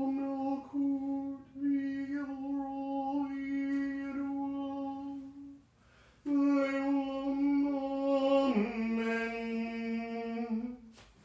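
A man's voice intoning two long, drawn-out tones of several seconds each, with a short break between them; the second tone drops to a lower pitch partway through. These are ritual vibrations of sacred names, held on one note each.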